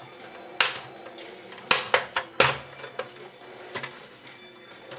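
Plastic clips of an Xbox 360 case snapping and clicking as a small flathead screwdriver pries them open: several sharp clicks over the first three seconds, then a fainter one.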